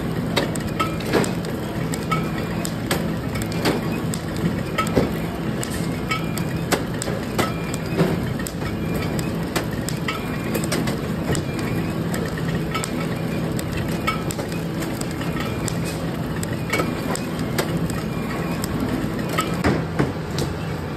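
Soap-bar flow-wrapping machine running: a steady mechanical hum with repeated short clacks as its chain conveyor pushes green detergent bars into the wrapper film.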